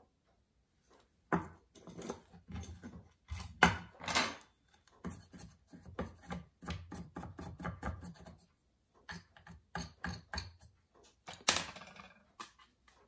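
Hand work on a metal pocket-watch case ring on a wooden bench peg: a run of short scraping and rubbing strokes with knocks of metal on wood, loudest around four seconds in and again near the end.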